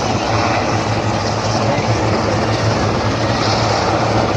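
Helicopter in flight: a steady drone with a constant low hum under an even wash of noise.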